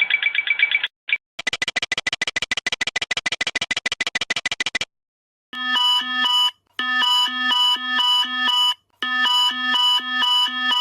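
Boeing cockpit overspeed warnings, several versions in turn. First a rapid pulsing tone stops just under a second in. Then a rapid clacker clicks about ten times a second for some three seconds. After a short pause come groups of electronic multi-tone pulses.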